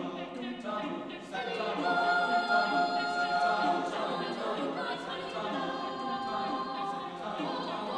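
Choir singing a cappella, with long held chords that grow louder about a second and a half in.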